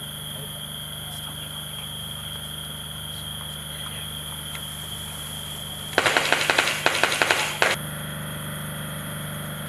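A burst of automatic gunfire: rapid shots for just under two seconds, starting about six seconds in, over a steady faint high whine.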